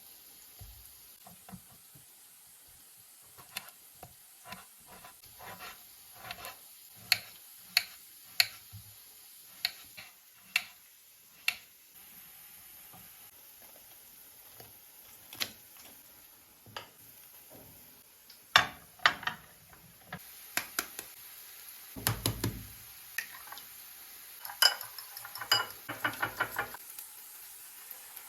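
Kitchen utensils clinking and tapping against dishes and a bowl in short, irregular strikes, a few of them ringing briefly, with a dull low knock about three quarters of the way through.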